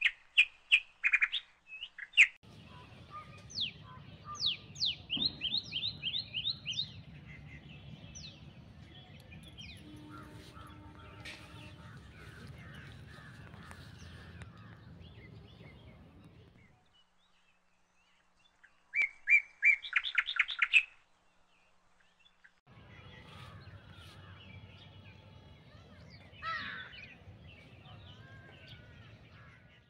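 Small birds chirping: sharp single chirps and quick runs of repeated notes, with a rapid series about two-thirds of the way through, over a steady low background rumble. The sound cuts out briefly twice.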